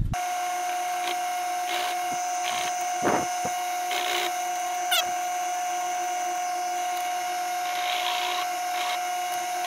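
Drill press running with a steady whine while its twist bit is brought down a few times onto the edge of a drilled hole in a steel bolt shank to chamfer it, each pass adding a short scraping hiss of cutting.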